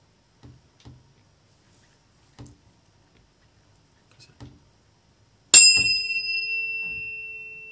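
A 440 Hz tuning fork, concert A, struck about five and a half seconds in: a bright metallic clang that dies away within a second, leaving a steady pure tone that slowly fades. A few faint handling knocks come before it.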